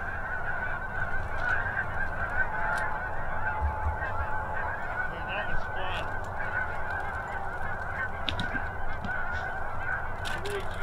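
A large flock of geese honking, a dense continuous chorus of overlapping calls with no break.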